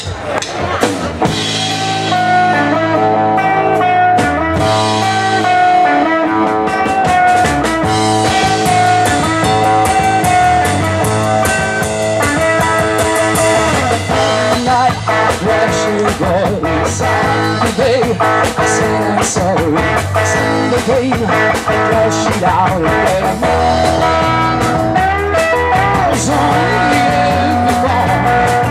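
Live rock band playing: electric guitar, electric bass and drum kit, with a woman singing into the microphone.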